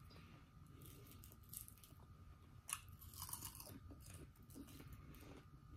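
Close-up chewing and crunching of a fried battered onion ring, faint and wet, with one sharp crunch about halfway through.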